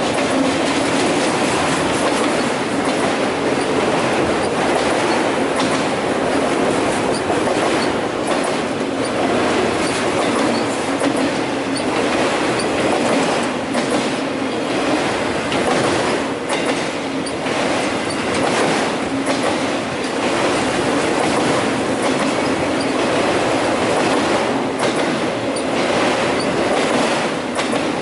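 CN freight train's autorack cars rolling steadily past: a continuous rumble of steel wheels on rail, with irregular clicks as the wheels cross rail joints.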